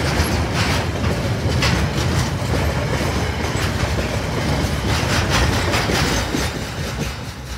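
Freight train's container and curtain-sider wagons rolling past at close range, a loud steady rumble with irregular wheel clacks on the rails. The sound fades near the end as the last wagon passes and the train moves away.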